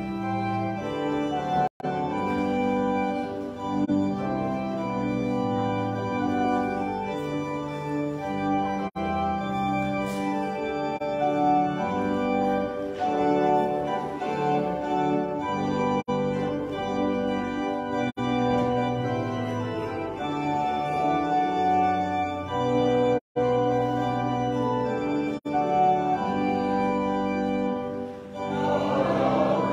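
Organ music playing slow, sustained chords, cutting out briefly twice. Voices begin singing near the end.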